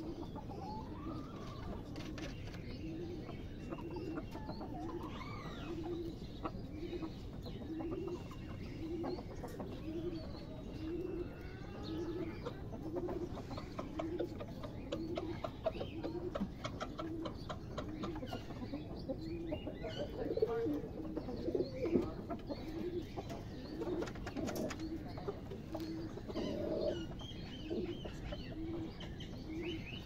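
Pigeons cooing in a steady, even rhythm, about one coo a second, with small birds chirping faintly over it. A few louder calls stand out about two-thirds of the way through.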